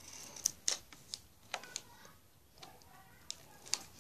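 Pencil drawing short strokes on a sheet of paper on a hard table: faint, irregular light ticks and scratches as the lead touches down and moves.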